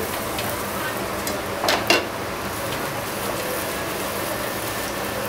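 Desi ghee sizzling under a makki ki roti on a hot tawa as a steel spatula presses and spreads it, with two short knocks of the spatula against the griddle a little before the two-second mark.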